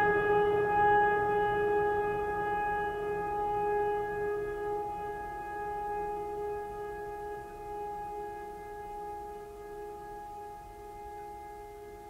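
Ambient background music: a single struck, bell-like metallic tone rings on and slowly dies away, its lowest tone wavering gently.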